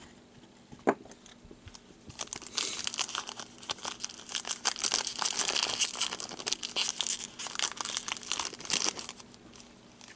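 Foil hockey card pack crinkling and crackling as gloved hands squeeze and work it, from about two seconds in until near the end, after a single click about a second in.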